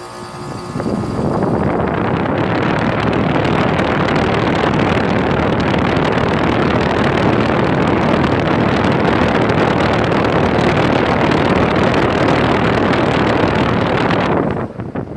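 Ruud 16 SEER heat pump outdoor unit running. Its fan pushes a loud, steady rush of air over the microphone, starting about a second in and dropping off sharply near the end.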